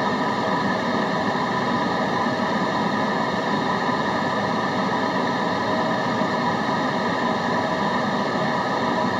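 Steady, unchanging white-noise hiss, spread evenly from low to high with a few faint steady tones running through it, used as a background sound for concentration.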